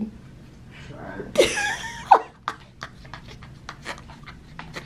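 A brief murmured voice sound about a second in, with no clear words, then a run of light clicks and rustles.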